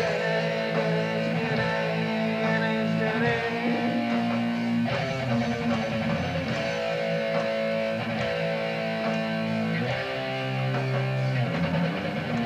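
Electric guitar being played in the studio, long held notes and chords that change every second or two, with a bigger change about five seconds in and again near ten seconds.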